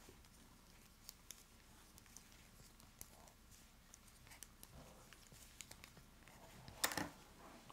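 Faint, scattered light clicks and rubbing of knitting needles and yarn as stitches are worked by hand, with one short louder burst near the end.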